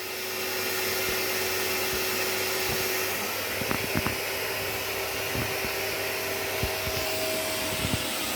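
Steady rush of air from a running fan-driven machine, building up over the first second, with a faint hum whose pitch shifts partway through and a few faint clicks.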